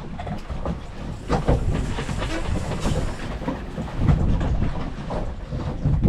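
Low rumble of a boat at sea with irregular knocks and thumps, and wind buffeting the microphone.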